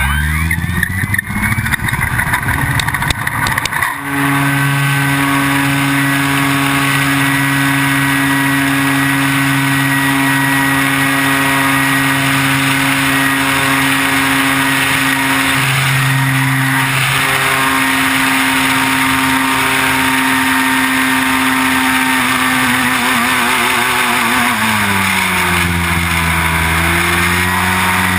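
Electric motor and propeller of an E-flite T-34 Mentor RC plane, heard from a camera on the airframe. The motor spins up with a rising whine while the wheels rattle over rough asphalt for the first few seconds of the takeoff roll. It then runs at a steady whine with a rush of air in flight, dipping in pitch and coming back up near the end.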